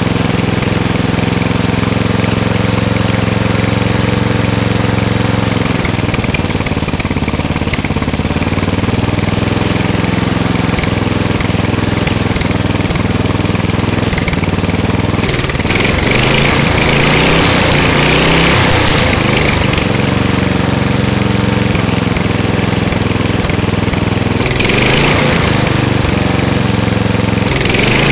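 Murray riding lawn mower's engine running at a steady idle. It is revved up for several seconds about halfway through by hand at the carburetor, and briefly twice more near the end. The engine still needs about a quarter choke to idle well because the cleaned carburetor is not quite right.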